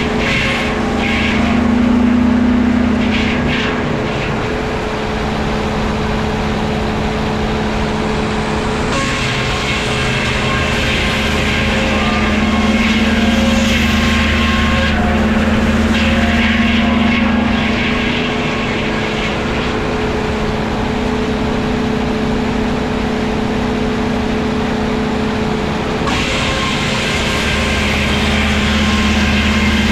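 Woodworking machinery running with a steady hum. A harsher, higher noise comes and goes every few seconds.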